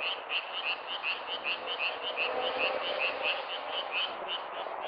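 A chorus of frogs calling: short, high croaks repeated rapidly, about six a second, over a steady background of more frogs calling.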